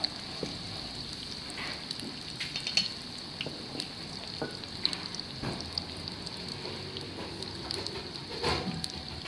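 Battered thick-cut Anno sweet potato slices deep-frying in oil at about 170 °C: a steady sizzle with scattered crackles, and a brief louder sound near the end.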